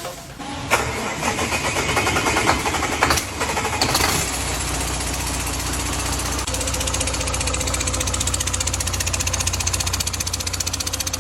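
Fukang car engine cranked and started, catching after a few seconds of uneven firing and then settling into a steady idle, as a test start after repair of its crushed oil pan.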